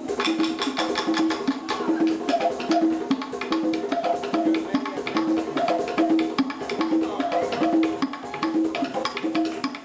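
Live African hand-drum ensemble playing a fast, steady rhythm: crisp slapped strokes over a deeper drum note that repeats about one and a half times a second.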